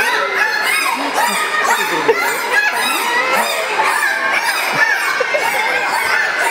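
Two bottlenose dolphins calling on cue with their heads raised out of the water: a dense, continuous stream of rising and falling whistles and squawks, mixed with rapid buzzy clicking.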